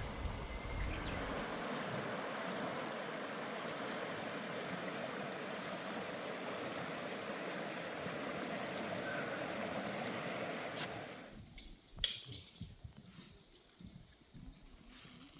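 Mountain stream water rushing steadily, then cutting off abruptly about eleven seconds in. What follows is quieter, with one sharp click and faint bird chirps near the end.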